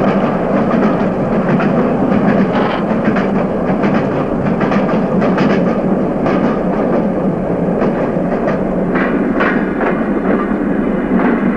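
A rail vehicle running along the track: a steady rumble with an irregular clatter of wheels over the rails, which grows busier near the end.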